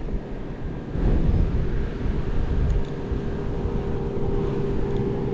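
Strong wind buffeting the microphone in low rumbling gusts, growing louder about a second in, with a steady hum underneath.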